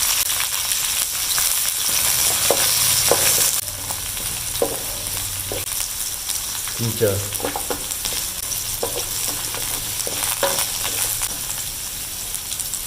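Garlic and onion sizzling in hot oil in a pan while being stirred, with short scrapes of the utensil against the pan. The sizzle drops in level about three and a half seconds in.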